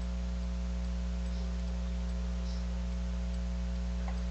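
Steady electrical mains hum: a low drone with several even overtones under a light hiss.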